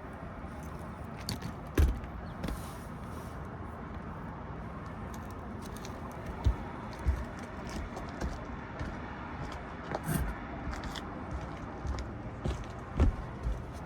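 Scattered sharp clicks and knocks of tools and metal parts being handled, over a steady mechanical hum.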